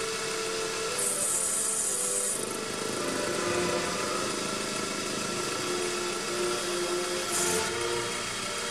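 Proxxon PD 250/e mini lathe running with the spindle turning while a lathe tool takes small, light passes in brass, with a high hiss for about a second and a half starting about a second in and briefly again near the end. Orchestral music plays underneath.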